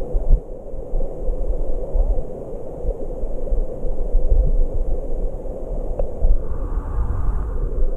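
Muffled low rumble and rush of a shallow stream's current, heard through a camera held underwater in the stream. A faint click about six seconds in.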